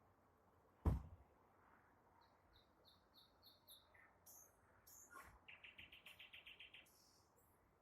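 Nightingale singing: a run of about six evenly spaced high notes, a few short whistles, then a fast, even trill of about nine notes a second. A single sharp knock about a second in is the loudest sound.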